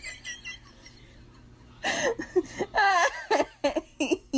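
A person's high-pitched voice in quick wordless bursts from about two seconds in, after a short quiet stretch.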